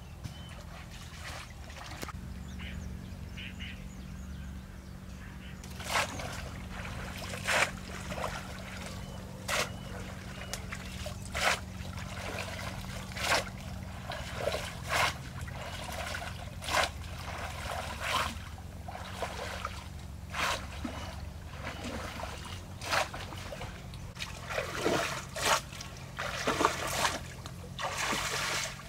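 Water splashing in short, regular strokes, about one every two seconds, starting a few seconds in, over a steady low hum.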